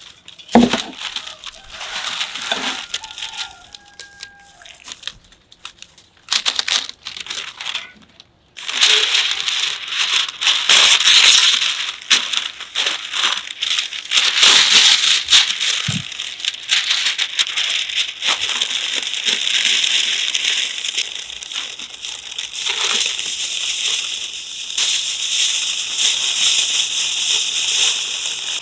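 Baking paper and aluminium foil crinkling and rustling as they are folded by hand around a whole raw lamb. Scattered handling rustles come first, then about eight seconds in a continuous dense crackle sets in and lasts to the end.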